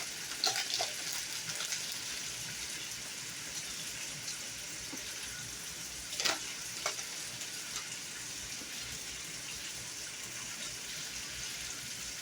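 Chicken frying in hot oil, a steady sizzle with a few faint clicks and taps.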